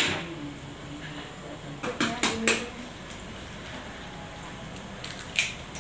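A few sharp knocks of kitchen utensils and dishes at a gas stove: two or three close together about two seconds in, and one more near the end, over a steady low hiss.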